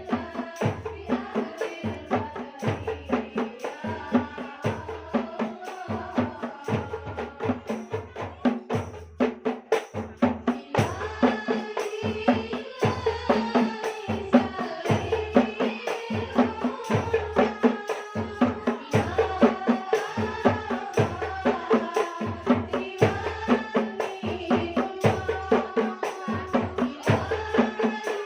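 Voices singing a sholawat, an Islamic devotional song, over a steady beat of hand percussion at about two strokes a second. The singing grows stronger about eleven seconds in.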